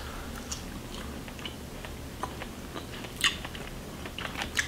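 Two people biting into and chewing candy: soft, wet mouth clicks, with a louder one about three seconds in and another near the end.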